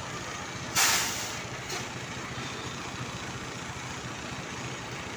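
Tour bus's diesel engine idling, with a loud, sudden burst of air hiss about a second in and a shorter hiss soon after, as the air brakes release.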